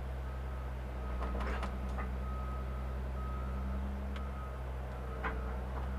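Caterpillar 365 excavator's diesel engine running steadily, heard from inside the cab, with a warning alarm beeping in a steady on-off rhythm while the upper structure is swung to check the swing for slack. A few short clicks and knocks sound in between.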